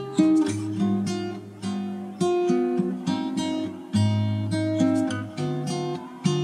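Background music of plucked guitar notes and chords, each struck sharply and fading, in a steady flowing pattern.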